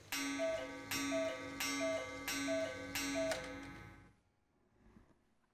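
Mechanical cuckoo clock calling five times, each a two-note cuckoo falling from the higher to the lower note, with a sharp ringing stroke at the start of each call. The calls come about 0.7 seconds apart and stop about four seconds in.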